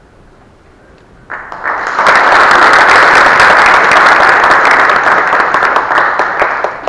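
Audience applauding. The clapping starts about a second in, swells within a second to a full, dense applause, and dies away near the end.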